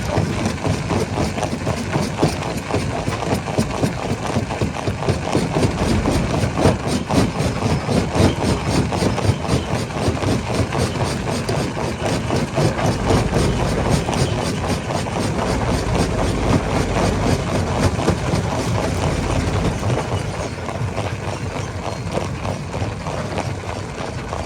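Heavy rock crusher running: a steady engine drone with a dense, rapid clatter of stone, easing off slightly near the end.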